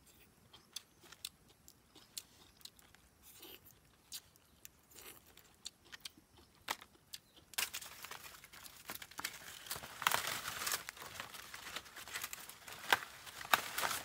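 Crinkling, rustling handling sounds: scattered light clicks at first, then from about halfway a denser, louder crinkling with sharp cracks.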